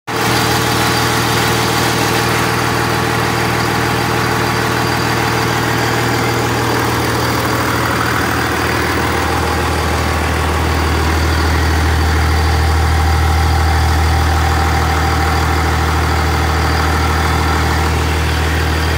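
5.9 Cummins turbo-diesel engine idling steadily on its first startup after an overhaul.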